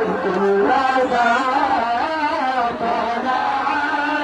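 Voices chanting an Islamic devotional song (nasheed) in a drawn-out, gliding melody, with no instruments standing out.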